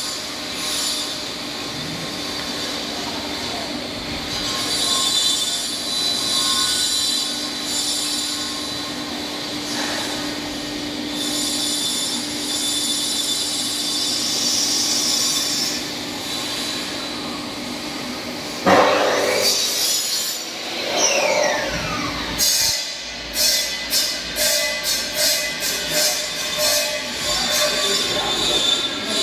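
Work noise in a UPVC window fabrication shop. A high-pitched hissing screech comes and goes, and a sudden loud clatter about two-thirds of the way through is followed by a falling whine. Near the end comes a quick run of sharp taps.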